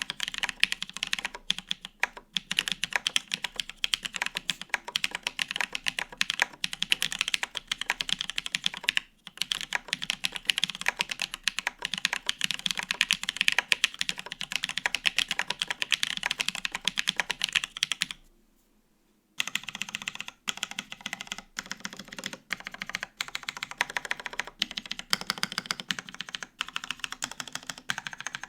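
Fast, continuous typing on a gasket-mount Bear 65 ergo mechanical keyboard with no foam: lubed Holy Panda tactile switches on a polycarbonate plate, under GMK double-shot ABS keycaps. The keystrokes come in quick, dense runs, with a brief pause about two-thirds of the way through.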